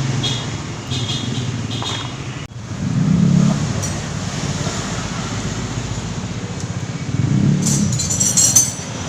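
Steady motor-vehicle engine noise that swells louder twice, with a few sharp metallic clinks near the end.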